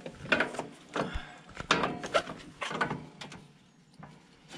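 Irregular knocks and clicks of metal parts being handled and fitted at a UTV's transmission, dying down near the end.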